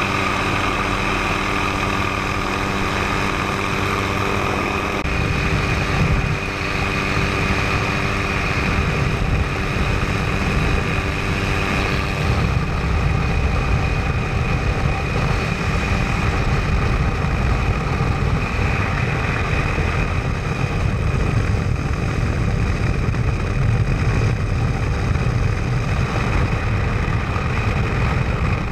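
Helicopter in flight, heard from inside: a steady turbine whine over the rotor and engine drone. About five seconds in, the low rumble turns rougher.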